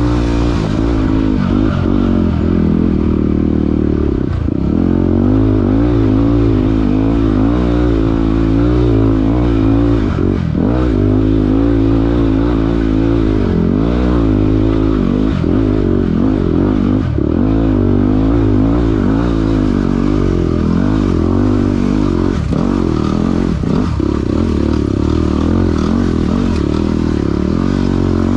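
Yamaha WR250R's single-cylinder four-stroke engine running while the bike is ridden, its revs rising and falling every second or so.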